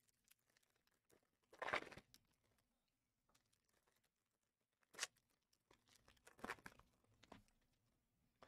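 Trading-card pack wrappers crinkling and tearing in a few short bursts: one about two seconds in, a sharp one near five seconds, and a cluster around six and a half seconds, with near silence between.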